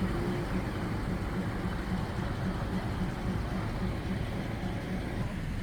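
Diesel train's engine idling at the station, a steady low throb with an even pulse.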